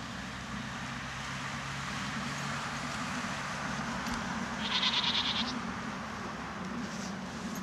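A young horse whinnying once: a brief, high, quavering call about five seconds in, over a steady rushing background.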